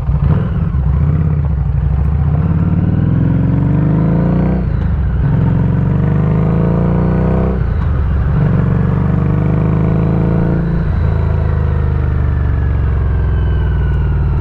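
Harley-Davidson Street 500 V-twin motorcycle pulling away and accelerating through the gears. Its engine note climbs in pitch in each gear and drops at each of three upshifts, about 5, 8 and 11 seconds in, then holds steadier near the end.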